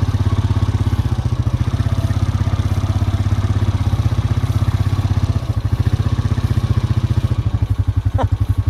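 Vehicle engine idling steadily with an even low chug, the farm machine the farmer is using while checking the cattle. Near the end there is a brief, thin rising-and-falling squeal.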